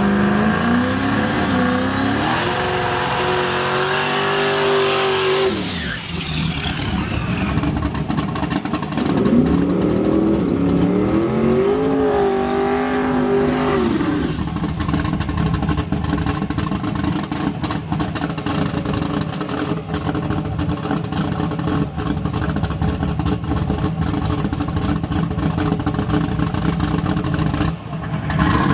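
Buick Grand National drag car launching and accelerating hard, its engine pitch climbing in steps through the gears for about six seconds before falling away. A few seconds later a second run climbs the same way, and for the second half a car engine idles steadily.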